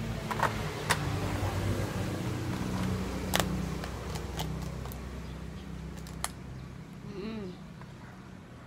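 A cooked mud crab's shell cracking and snapping as it is pried apart by hand: a few sharp cracks, the loudest about three seconds in, over a low steady hum.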